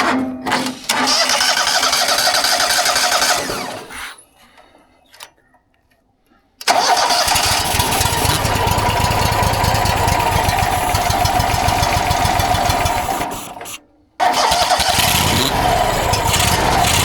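Mobile sawmill's engine being started three times: each attempt starts abruptly, runs a few seconds and the first two die away into silence. A fuel-starvation problem, which the mechanic describes as the engine 'trying to get fuel'.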